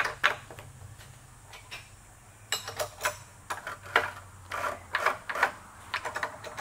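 Metal clicks and clinks of hand-handled steel tooling: a hex key and the clamps of a machine vise on a mill's rotary table, coming in several short clusters after a quieter second or two, over a low steady hum.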